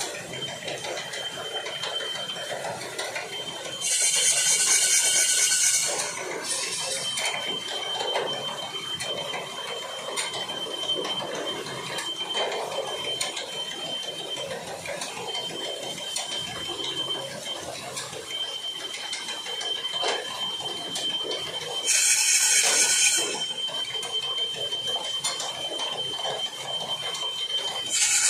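Wooden Persian-wheel (rehat) gearing, driven by a pair of bulls running round it, clattering continuously, with a thin, steady, high squeal through much of it. Three short, louder bursts of high hissing noise break in: about four seconds in, at about twenty-two seconds, and at the very end.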